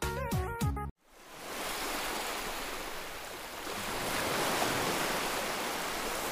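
Electronic dance music with a steady beat cuts off about a second in. A steady rush of waves breaking in shallow water along the shore then fades in, with wind.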